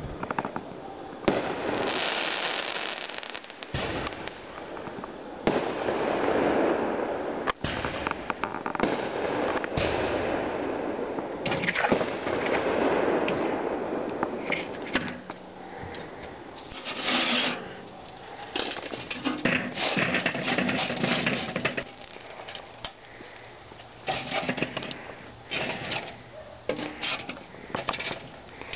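Fireworks going off: hissing swells of a second or two, then rapid crackling pops that come thickest in the second half.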